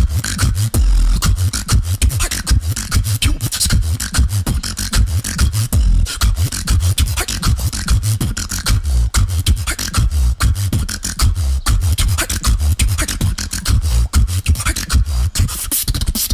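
Beatboxing into a microphone: a dense, fast beat of sharp clicks and percussive hits over heavy deep bass.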